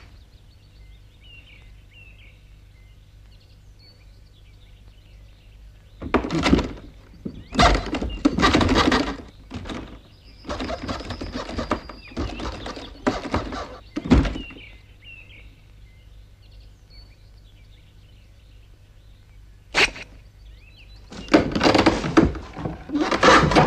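Cartoon sound effects: a run of knocks, scrapes and clattering starts about six seconds in and ends with a sharp knock some eight seconds later. After a pause there is a single sharp click, then more clattering near the end. Faint bird chirps can be heard in the quiet stretches.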